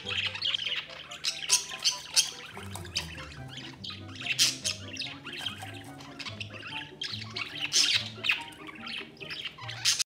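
Budgerigar giving short, harsh chirps and squawks, a few each second or two, over background music with a slow, low bass line.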